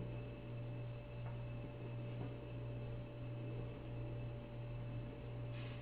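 Steady low hum, with a few thin, fainter higher tones held over it.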